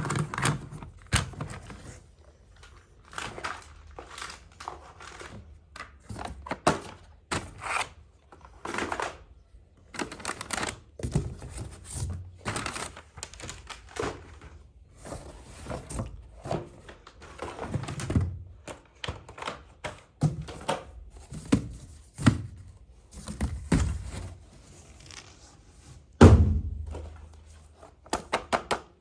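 Close, hands-on handling of a plastic toy kitchen play set and its packaging: irregular taps, clicks and thunks of small plastic pieces being picked up and set down, with crinkling and tearing of wrapping between them, and one louder thump near the end.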